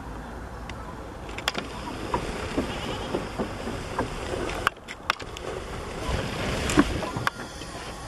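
Muffled wind rumble on the camera's microphone, with several sharp knocks from handling the camera, the loudest about seven seconds in.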